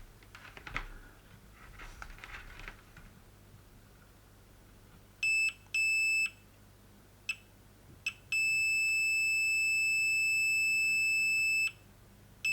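Multimeter beeper in diode-check mode sounding as the probes touch a diode on a circuit board: two short beeps about five seconds in, two very brief chirps, then a long steady high beep of about three seconds and another starting near the end. The held beep is the sign that the diode is measuring short. Faint rustling of the probes being handled in the first few seconds.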